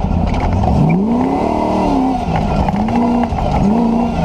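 Land Rover's 4.6-litre V8 engine driven hard off-road, revs climbing and dropping three times in quick succession: about two seconds in, just past three seconds, and near the end.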